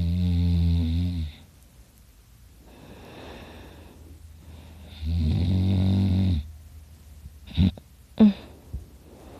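A man snoring loudly in his sleep: two long rattling snores about four seconds apart, with a softer breath between them, then two short, sharp sounds near the end.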